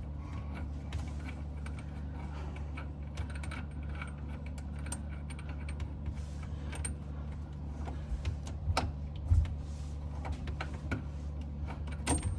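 Scattered small clicks and knocks as tools and pipe fittings are handled in a cramped under-sink cabinet during plumbing work. A few louder knocks come about nine seconds in and again near the end, over a steady low hum.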